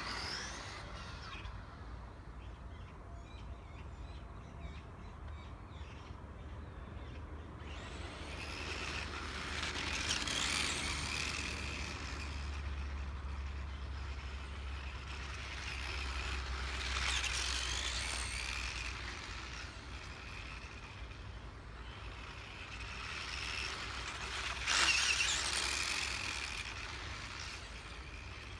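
Mechanical squeaking and scraping that swells up three times, several seconds apart, over a low steady rumble.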